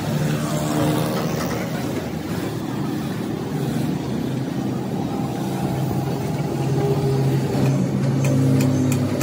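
An engine running steadily with a low hum that grows a little louder near the end.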